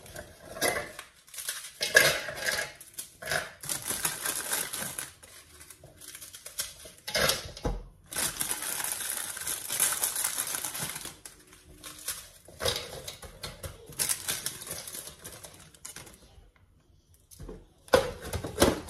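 Plastic biscuit packaging crinkling and dry biscuits clattering into a plastic food-chopper bowl, with a few sharp clicks near the end as the chopper's lid goes on.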